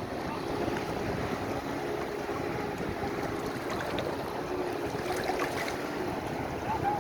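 Beach ambience: sea waves washing in, with wind buffeting the microphone.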